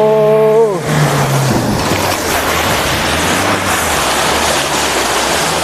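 Off-road 4x4's engine running steadily under load on a muddy track, under a steady rushing noise. A short held shout is heard at the very start.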